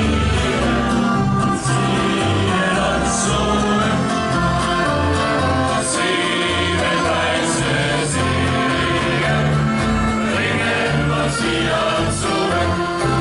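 Music: a choir singing with instrumental accompaniment and a steady bass line.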